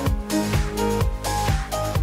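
Background electronic dance music with a steady kick drum about twice a second under a synth melody.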